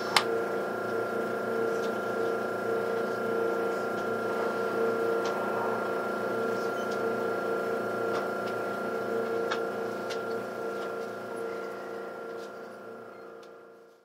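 Passenger cabin of a JR West 681 series electric express train moving slowly: a steady, multi-tone mechanical hum with a few faint clicks. It fades out near the end.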